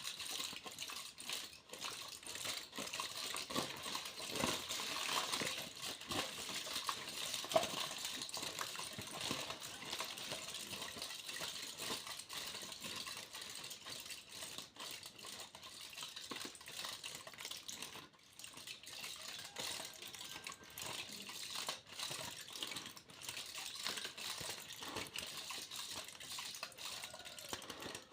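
Aluminium foil being crinkled and handled, a continuous dense crackle of small sharp clicks and rustles.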